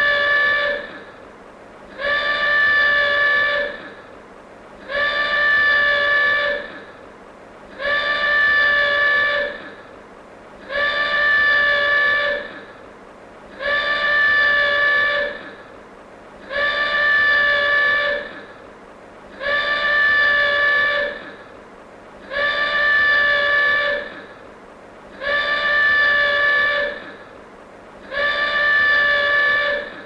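Klaxon alarm from a vintage 1960s film sound-effects recording, blaring in repeated two-second blasts about every three seconds, about ten in all. Each blast is one steady, buzzy tone that dips slightly in pitch as it cuts off.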